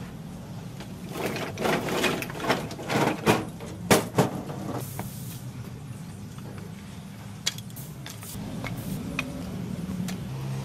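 Split firewood clattering and knocking as a load is tipped off a hand trolley onto the ground, a dense run of wooden knocks for a few seconds, then single knocks as pieces are set one at a time into a brick fire pit. A steady low hum runs underneath.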